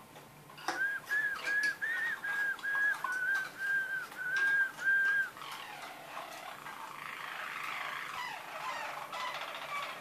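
Roller canary singing: a run of about ten clear, repeated whistled notes, roughly two a second, then from about halfway a softer, continuous rolling trill.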